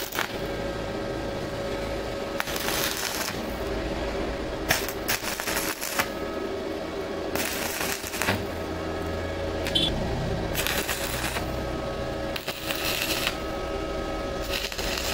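Stick-welding arc crackling in about seven short bursts, each half a second to a second long, as an electrode rod tack-welds steel nuts into a frame.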